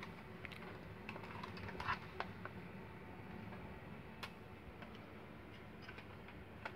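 Faint, scattered light clicks and taps from a plastic toy spring airsoft rifle being handled and turned over in the hands, with a low steady background hiss.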